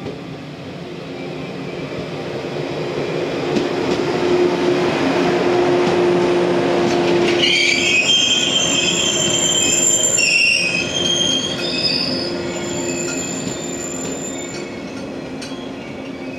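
JR West 115-series three-car electric train running past along the platform, its running noise building to a peak about eight seconds in. From about halfway through, high squealing comes from under the cars, and the noise then fades as the train moves away.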